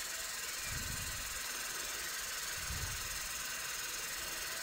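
Steady hiss of water spraying from a 500cc AEM methanol injection nozzle mounted in an aluminium volute, run by the injection pump during a timed flow test. Two soft low thumps come about one and three seconds in.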